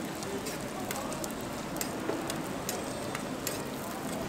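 Hotteok frying in oil on a flat griddle: a steady sizzle with scattered sharp crackles.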